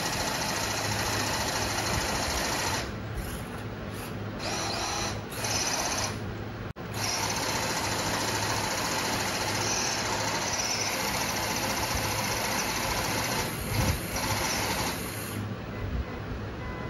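Electric motors and gearboxes of an RC Toyota Land Cruiser pickup and an RC Hummer H2 whirring steadily under load as the two pull against each other in a tug of war. The whirr dips briefly a few times.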